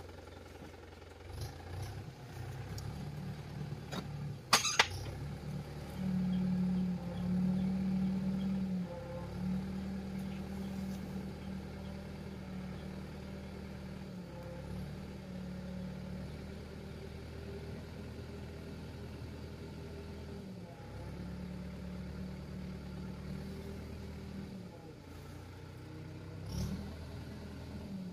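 Mahindra Yuvo tractor's diesel engine running steadily under the load of raising a hydraulic tipper trailer full of soil. It comes up in speed about six seconds in and settles a little lower after a few seconds. There is a single sharp click about four and a half seconds in.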